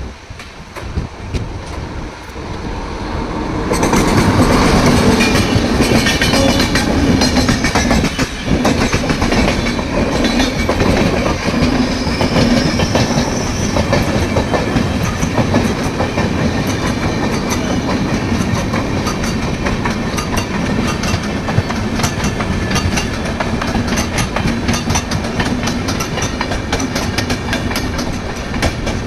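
Howrah-Bengaluru Express train running along the track: a steady rumble with a dense clickety-clack of wheels over the rails, growing much louder about four seconds in and holding.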